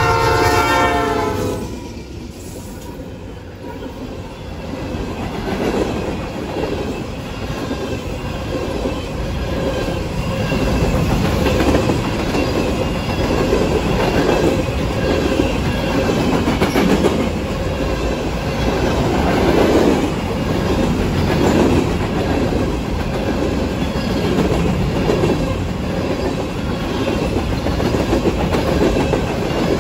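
A diesel locomotive horn chord ends about a second and a half in, then a long freight train rolls past steadily, its wheels clacking over the rail joints.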